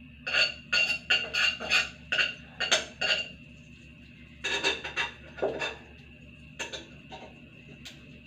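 Metal spoon stirring and clinking against the sides of a small metal cooking pot: about eight quick clinks in the first three seconds, another burst about four and a half seconds in, then a few scattered taps.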